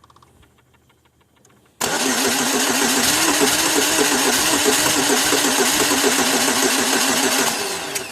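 A 2002 Pontiac Grand Am's starter cranks the engine with an even pulsing rhythm for about six seconds. It stops near the end without the engine settling into a run. This is a hard-start condition: the engine needs several attempts before it fires.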